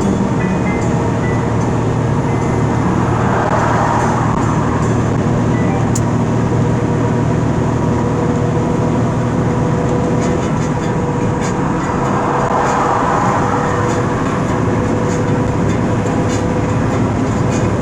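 Steady road and engine noise of a vehicle driving at highway speed, heard from inside the cab, with a constant droning tone and two gentle swells.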